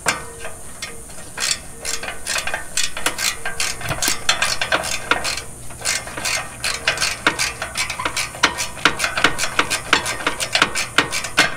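Hand ratchet wrench clicking as it turns a nut on a bull-bar light-mount bracket: a long run of quick clicks, sparse at first and then several a second.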